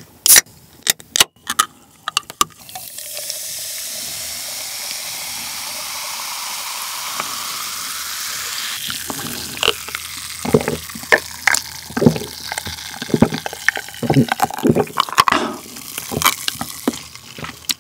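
A Coca-Cola can opened with a few sharp clicks, then cola poured over ice into a glass, hissing steadily as it fizzes. From about ten seconds in come crackles of fizz on the ice and gulps as it is drunk.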